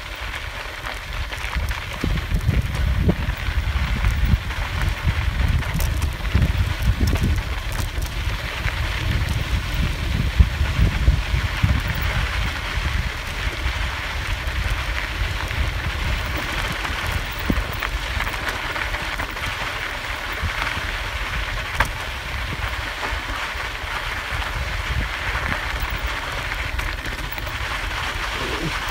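Wind buffeting the microphone over the hiss and crunch of bicycle tyres rolling fast on a loose sandy dirt track, with a few sharp clicks and rattles from the bike.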